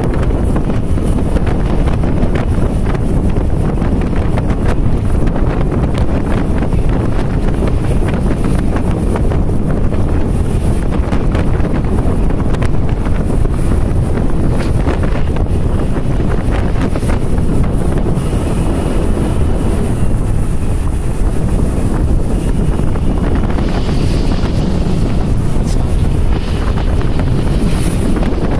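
Steady wind buffeting the microphone of a camera riding on a moving vehicle, with road and vehicle noise underneath.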